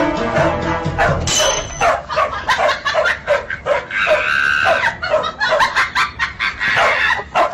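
A dog barking repeatedly in short, quick barks, about two or three a second. Background music plays under the start and drops out about a second in.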